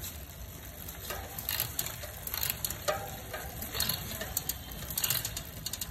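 Road bike drivetrain in a work stand: the chain runs over the cassette and the Shimano Ultegra Di2 8050 rear derailleur pulleys as the rear wheel spins, with irregular light ticking over a low hum. The freshly adjusted derailleur no longer skips and runs very smoothly, with only a slight rub left at one spot.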